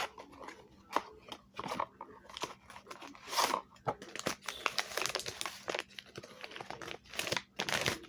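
Action figure packaging being opened by hand: irregular crinkling, crunching and tearing of the packaging.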